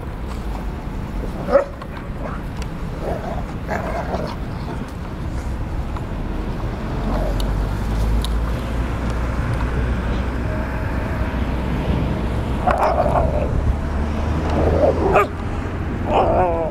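Dogs playing rough, with short yips and barks now and then, a cluster of them near the end, over a steady low background rumble.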